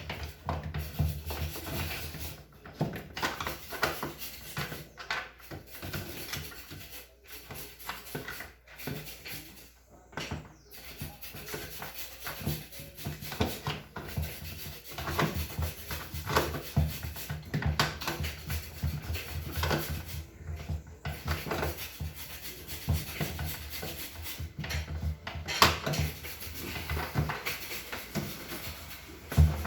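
Hands working a refrigerator's plastic fan assembly back into its housing: irregular rubbing, scraping and clicking of plastic parts, over a steady low hum.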